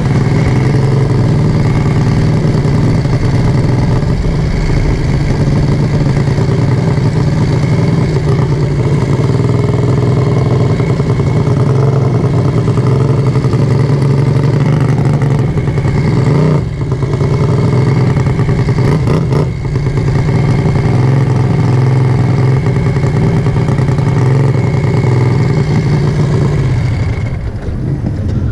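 Racing lawnmower engine running at a steady, even speed, close to the microphone, with two brief dips in the middle.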